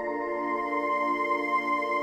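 Ambient electronic drone music from synthesizers: sustained, overlapping tones. Right at the start a lower cluster of notes comes in with a slow wavering pulse, under steady high tones.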